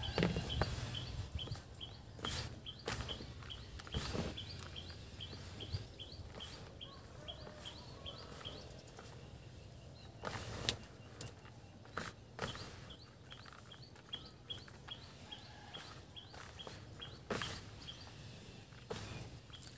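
Hands squeezing and turning damp fish-feed mash in a plastic basin, with soft, irregular rustles and clicks. A bird repeats a short, high, slightly rising chirp about twice a second, stopping a few seconds before the end.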